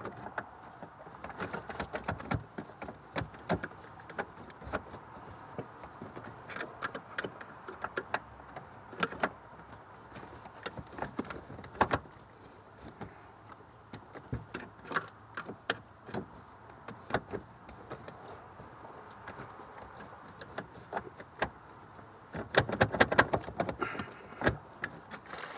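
Screwdriver levered and twisted inside a 2013 Volvo XC60's broken rear seat-back latch, trying to trip the release: scattered clicks, scrapes and knocks, with a dense flurry of clicks near the end.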